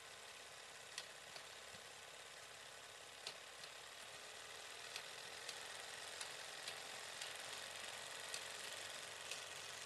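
Faint steady hiss with short sharp clicks scattered at irregular intervals, the clicks coming more often and the hiss a little louder from about four seconds in.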